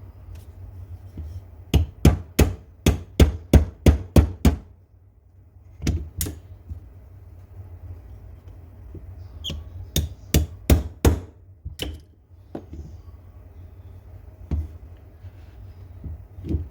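A small hammer tapping in quick runs: about eight strikes at roughly three a second, two more, then a second run of about five, and a couple of single taps near the end.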